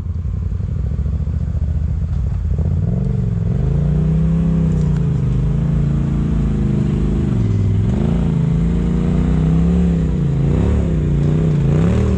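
A side-by-side off-road buggy's engine running under load on a rocky climb. It holds a low drone at first, then about three seconds in the throttle starts coming on and off, so the engine note rises and falls again and again.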